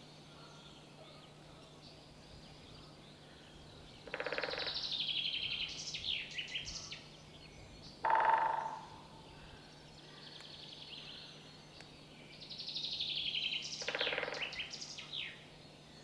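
Great spotted woodpecker drumming: rapid drum rolls on wood, each under a second, about four seconds in, again near eight seconds and near fourteen seconds. High chirping songs of small birds sound over them.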